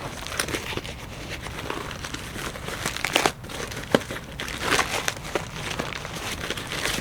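Packaging crinkling and rustling as parts of a clutch kit are handled and pulled out of their box, in irregular bursts with a couple of sharper knocks a little past the middle.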